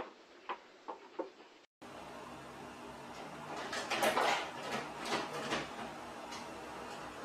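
A grey cat pushing into a cabinet, with light knocks and scraping against it over a steady low hiss, loudest about four seconds in. A few faint taps come first.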